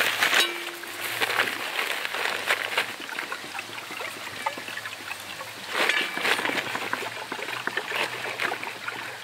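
Newspaper rustling and crinkling as it is handled, in a run of short crackles with a louder burst of rustling about six seconds in.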